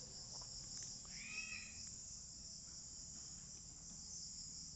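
Faint, steady high-pitched chirring of an insect chorus in the background, with a low hum underneath.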